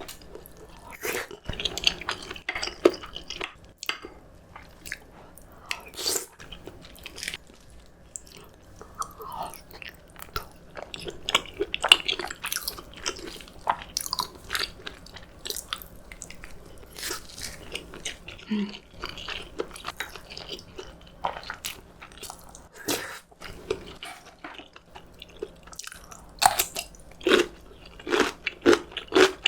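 Close-miked eating: a person chewing and biting food, with irregular crunches and wet clicks throughout.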